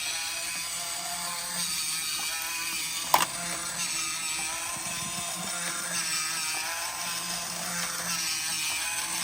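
Battery-powered plastic walking spider toy running, its small electric motor and gears whirring with a steady mechanical rattle, and one sharp click about three seconds in.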